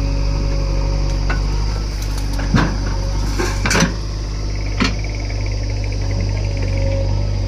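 Backhoe loader's diesel engine running steadily, with a few sharp knocks about halfway through.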